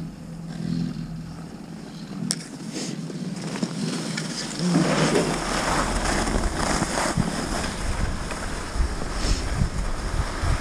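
Skis sliding over packed snow as a skier comes off a chairlift, an uneven hiss that sets in about halfway through. A single sharp click comes earlier, in a quieter stretch.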